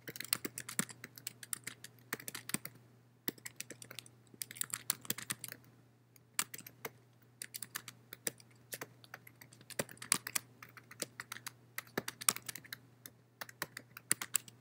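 Typing on a computer keyboard: quick runs of keystrokes broken by short pauses, over a faint steady low hum.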